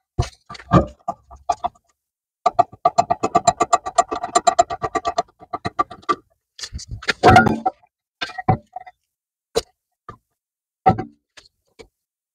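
Hand tools clicking and clattering on the metal of a rear brake caliper as its electric parking-brake motor is unscrewed. There is a rapid run of clicking about two and a half seconds in, a louder clatter a little past seven seconds, then scattered single clicks.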